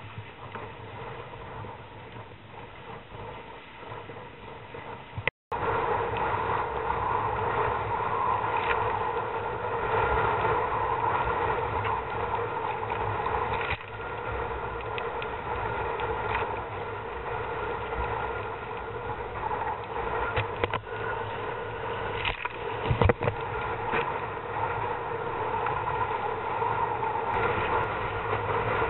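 Gusting wind on the microphone and water slapping against a kayak hull on choppy river water, with a steady hum under it. About five seconds in the sound cuts out briefly, then comes back louder.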